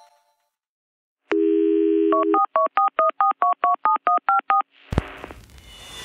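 A telephone dial tone for about a second, then about a dozen quick touch-tone keypad beeps, as in dialing a number. Near the end a click and a rising swell of noise follow.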